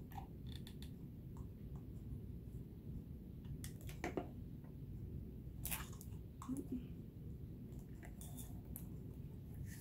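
Scattered light clicks and crinkles of hard plastic pieces, a bottle cap and a broken plastic ornament, being handled and pressed into hot glue, over a low steady room hum.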